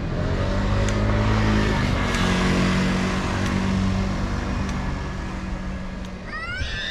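A motor running steadily at a low pitch, swelling over the first couple of seconds and then fading. Near the end come a few high calls that rise and fall.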